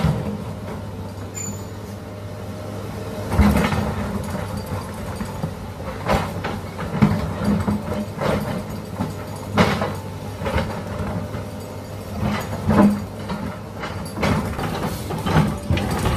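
Small electric motors and gearing of a motorised toy excavator running with a steady hum, with irregular knocks and scrapes about once a second as the arm works and the bucket digs into the soil.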